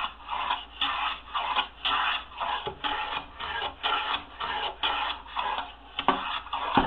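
Metal hand plane taking quick, short strokes along the edge of a wooden board, about two shaving cuts a second, rounding the corner over into a bullnose. A sharp knock near the end.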